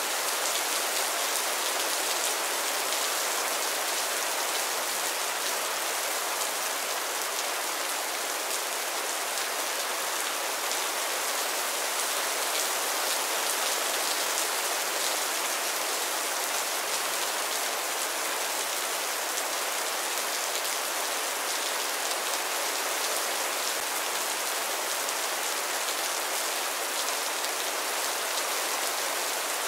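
Heavy rain falling steadily: a dense, even hiss of countless drops with fine patter, unchanging throughout.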